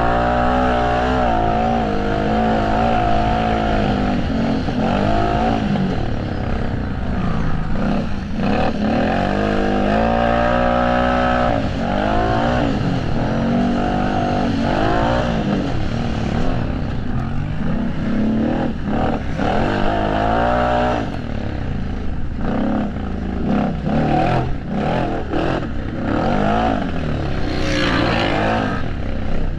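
Racing ATV engines revving hard and dropping off again and again as the riders accelerate and shift, with several engines overlapping. A louder, noisier rush comes near the end.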